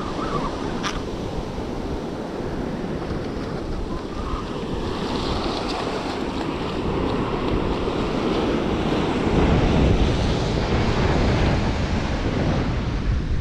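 Ocean surf breaking and washing up the beach, with wind buffeting the microphone that grows stronger in the second half. A single sharp click about a second in.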